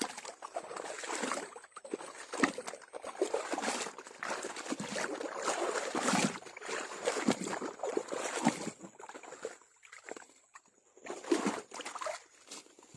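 Water sloshing, splashing and trickling in irregular bursts as an eel trap is pulled from shallow water and handled.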